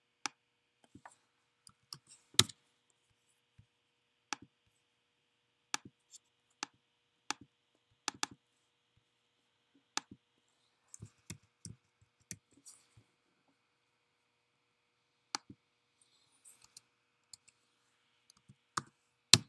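Irregular clicks and taps from a computer mouse and keyboard, as page numbers are typed into a PDF viewer's page box. A few clicks are louder, one about two seconds in and one at the very end.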